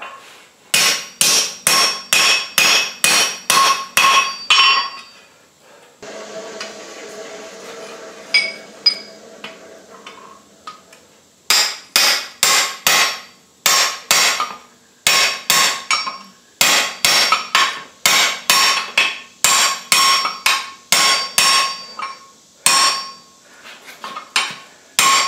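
Hand hammer striking red-hot steel on an anvil: ringing metallic blows about two a second, in a short run and then, after a pause of several seconds, a longer run. In the longer run the blows are driving a steel drift through the bar to open out the bottle-opener hole.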